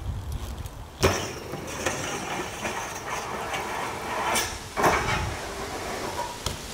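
BMX bike hitting a steel handrail with a sharp clank about a second in. It grinds down the rail on its pegs with a long metal scrape for about four seconds, then lands hard on the path near the end.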